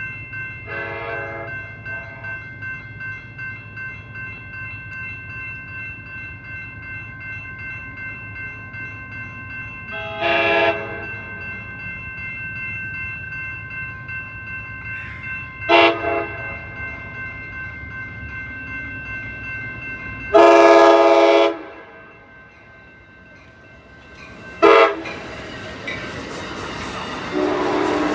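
Train horn sounding five separate blasts over a low rumble. The fourth blast, a little past two-thirds of the way through, is the loudest and longest. Near the end the rushing wheel noise of a passing train rises.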